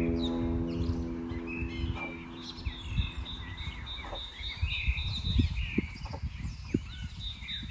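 A single plucked guqin note fades away over the first few seconds, under birds chirping and calling. A steady high-pitched tone joins about halfway through, and a low rumble runs underneath.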